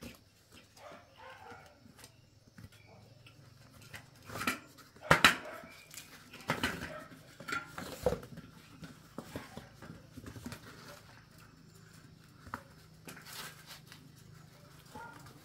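A bicycle tyre and inner tube being worked off a spoked metal rim by hand: scattered clicks, knocks and rubber scuffs, the loudest knocks coming about five to eight seconds in.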